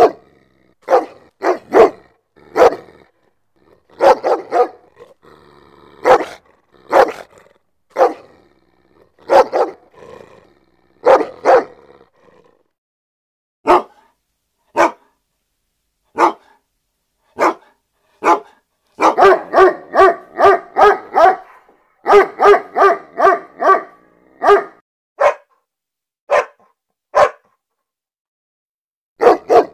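A dog barking in short single barks about a second apart, with silence between them, breaking into a rapid run of several barks a second about two-thirds of the way through, then back to single barks.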